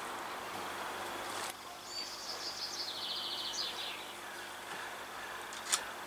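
A bird singing a short, high twittering phrase about two to four seconds in, over a steady outdoor background hiss.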